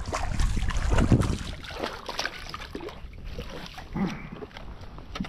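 A hooked sheepshead splashing and thrashing at the water's surface beside a kayak, loudest in the first second and a half. Then quieter scattered knocks as the fish is swung up to the kayak.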